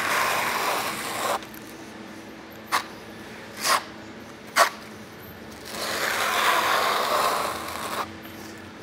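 Steel notched trowel scraping through wet thinset mortar on a board, combing it into ridges to set an even bed thickness. A long scraping stroke fades out about a second and a half in, three short scrapes follow in the middle, and another long stroke comes near the end.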